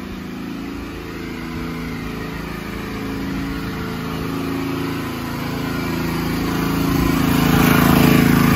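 Champion 8750-watt portable generator's gasoline engine running steadily, growing louder as it is approached.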